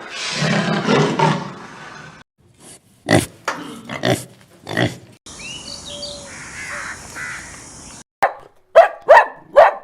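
A run of short animal sound clips one after another: a low grunting call first, then a few short sharp calls, then faint bird chirps over a steady high hiss, and four sharp loud barking calls near the end.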